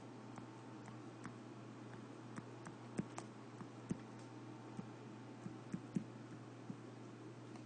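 Light, irregular taps and clicks of handwriting on a tablet touchscreen, over a steady low hum.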